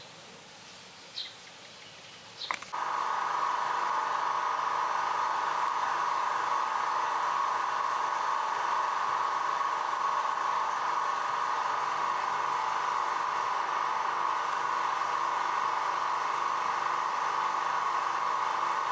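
A few short high chirps over quiet background. Then, about two and a half seconds in, a loud, steady, unchanging drone starts suddenly and holds to the end.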